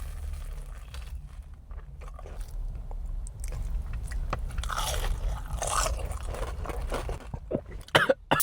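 Crunching bites into a crispy breaded fried mozzarella stick, then close-up chewing, loudest in the middle and ending with a few sharp clicks.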